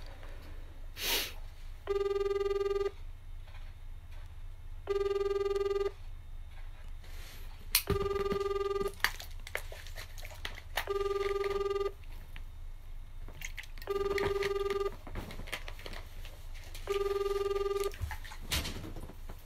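Telephone ringback tone of an outgoing call not yet answered: a steady low tone about one second long, repeating every three seconds, six times. A few light knocks and rustles from handling fall between the tones.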